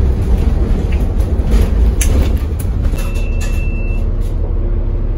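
Low, steady engine rumble of a double-decker bus heard from inside the cabin, with rattling clicks from the bus body and a short, thin high tone about three seconds in.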